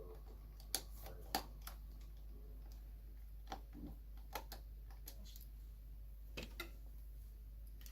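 Sparse light clicks and taps of tools and small parts being handled inside an opened iMac, the two sharpest about a second in, over a faint steady low hum.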